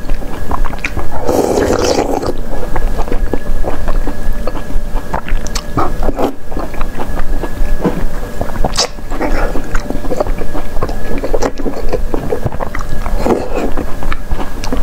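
Close-miked mouth sounds of eating braised intestines: sucking and slurping the soft pieces in, then wet chewing with irregular smacks and squishes. A longer, fuller slurp comes about a second and a half in.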